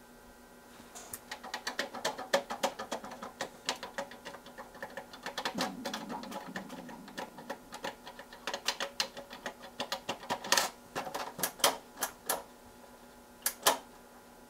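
Keithley 192 bench multimeter's front-panel push buttons clicking as fingers press them in quick, irregular runs, with a few louder clicks near the end as the power switch is flipped.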